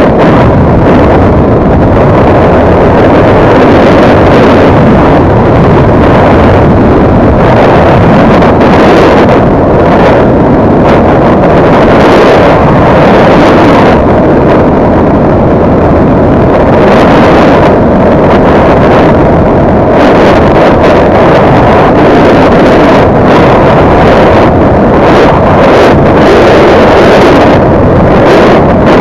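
CFMoto NK250 motorcycle's single-cylinder engine running steadily at cruising speed, about 75–80 km/h, under loud, steady wind rush on the microphone.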